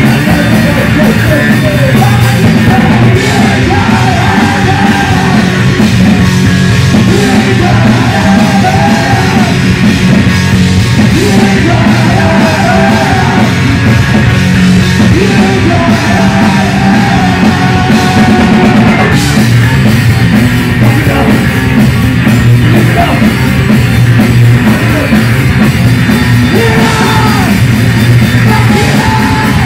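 Punk rock band playing live: electric bass guitar and drums, with a shouted lead vocal sung over them.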